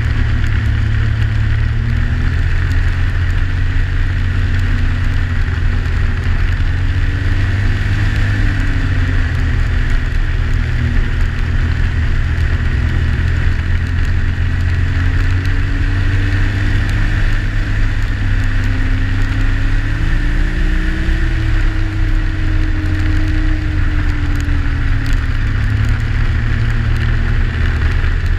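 Yamaha Sidewinder snowmobile's turbocharged three-cylinder four-stroke engine running steadily at trail-cruising speed, with a steady high whine and a hiss of track and snow. The engine note rises and eases slightly with the throttle, with a brief rise about twenty seconds in.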